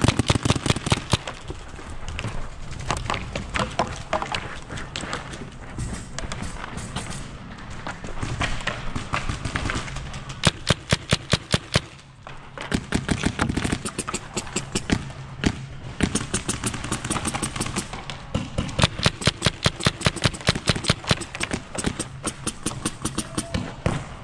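Paintball markers firing in rapid strings of sharp pops, several shots a second, in bursts with short pauses between them.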